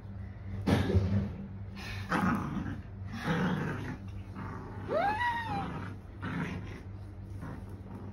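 Small dog growling in short bursts while tugging on a toy, with one short rising-then-falling squeal about five seconds in.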